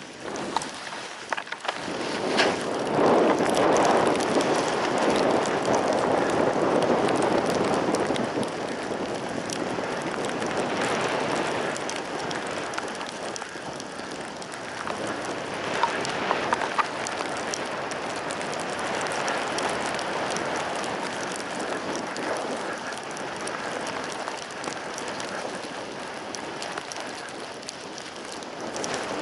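Skis sliding over snow while skiing downhill: a steady hiss mixed with rushing air. It swells about two seconds in and is loudest for the next several seconds, then settles to an even rush.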